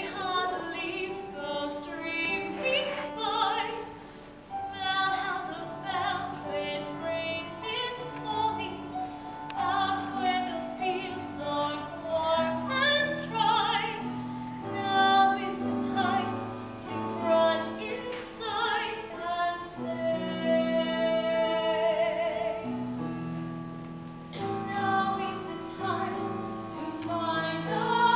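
Live musical-theatre singing on stage: a woman's voice holding notes with vibrato over instrumental accompaniment, heard from the audience.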